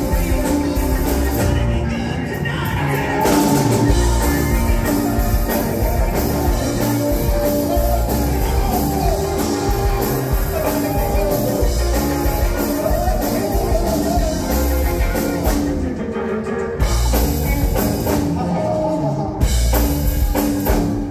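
Live rock band playing through a PA: electric guitars, bass guitar, drum kit and keyboard, with a male lead singer. The band breaks off briefly twice near the end as the song closes.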